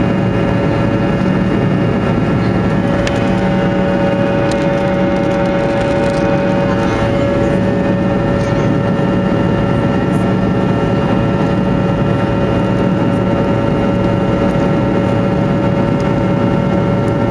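Fokker 100's rear-mounted Rolls-Royce Tay turbofan engines heard from inside the cabin: steady, even engine noise with several held whining tones and no change in pitch or level.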